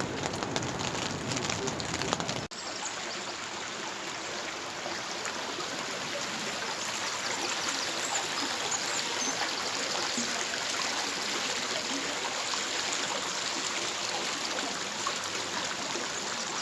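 Crackling clicks of the campfire for about two and a half seconds, then after a sudden cut a steady rush of running water, like a stream, that carries on unchanged.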